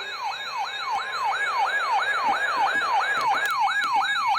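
Electronic siren-like alert tone sweeping rapidly up and down in pitch, about three sweeps a second, over a steady tone: the alarm that opens an emergency alert broadcast of a severe thunderstorm warning.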